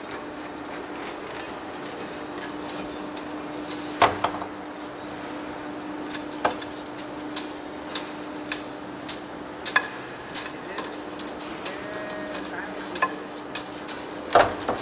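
A heavy-duty face lathe running with a steady hum, amid irregular sharp metallic clinks about once a second. The loudest clinks come about four seconds in and just before the end.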